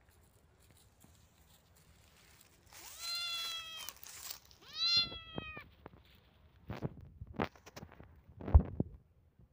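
Kitten meowing twice, two high calls about a second and a half long each. Then a run of short rustling crackles over dry leaves, ending with a thump near the end.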